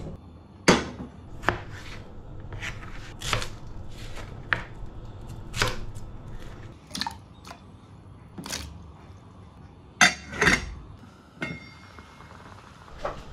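Kitchen knife chopping vegetables on a plastic cutting board: irregular sharp knocks about once or twice a second, two of them louder about ten seconds in. A faint steady hiss comes in near the end.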